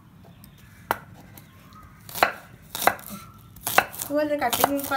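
Large kitchen knife chopping spring onion stalks on a wooden cutting board: a few separate, unhurried chops. A voice-like sound comes in near the end.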